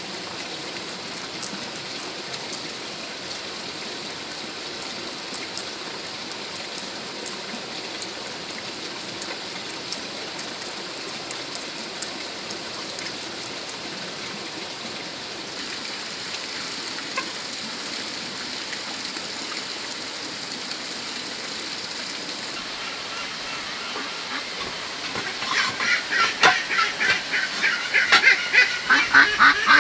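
Farm waterfowl honking in a loud, rapid run of calls that starts about 25 seconds in, over a steady even hiss.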